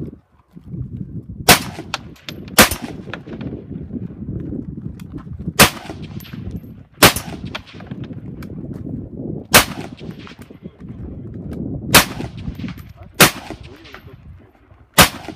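Rifle shots fired during an IPSC practical rifle stage: eight sharp shots spaced one to three seconds apart, with a steady low rumble between them.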